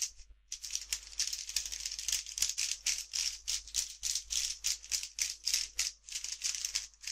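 A 54.5 mm MoYu Mini Weilong v2 3x3 speed cube turned quickly by hand, straight out of the box and not yet lubricated. A rapid run of plastic clicks and clacks, several a second, starts about half a second in and stops just before the end.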